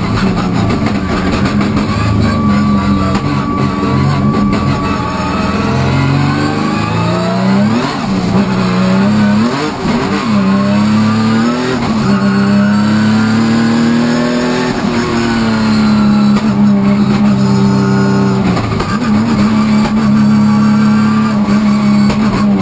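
Hyundai Genesis Coupe hill-climb race car engine at high revs, heard from inside the cockpit. Its pitch drops and climbs again several times about eight to twelve seconds in, as the car shifts and lifts through corners, then holds steady under full throttle.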